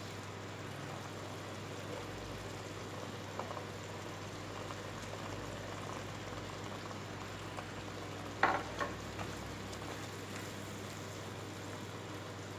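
Food sizzling gently in a pan, with a short clatter about eight and a half seconds in, followed by a smaller one.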